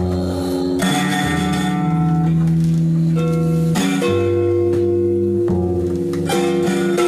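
Contrabass with a piezo pickup and a prepared electric-acoustic guitar playing together without vocals: a low bass line under held, ringing guitar notes, the notes changing every second or so.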